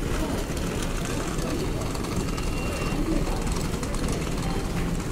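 Wheeled suitcases rolling over a footbridge walkway: a steady, even rumble, with faint voices in the background.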